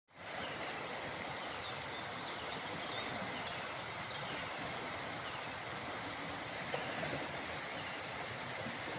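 Steady rush of flowing floodwater, with a few faint high chirps over it.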